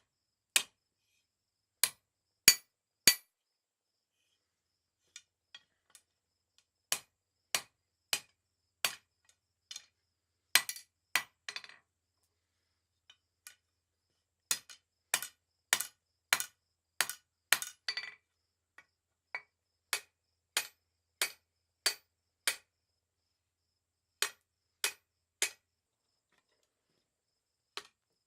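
Hand hammer striking half-inch mild steel round bar on an anvil in forging, blows landing about every half second in runs of several strikes, with short pauses between runs and a few lighter taps.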